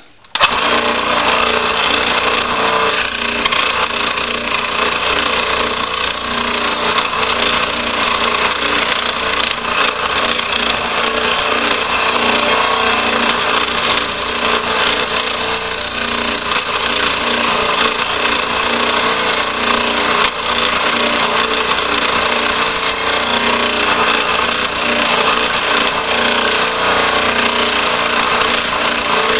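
Old scroll saw starting about half a second in, then running steadily and a little loud as its reciprocating blade cuts discs out of hardboard.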